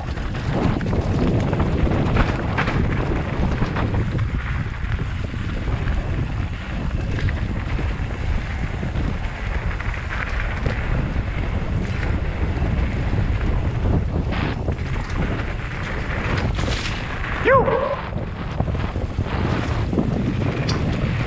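Wind buffeting the microphone of a helmet-mounted action camera during a mountain-bike descent, with the rush of tyres over a dirt trail and clattering knocks from the bike over rough ground. A brief squeal about three-quarters of the way through.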